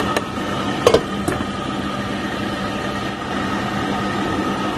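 A steady hum over a simmering pot of broth, with a few sharp clacks in the first second or so as a plastic spatula knocks against the pan, the loudest a quick double knock just before one second.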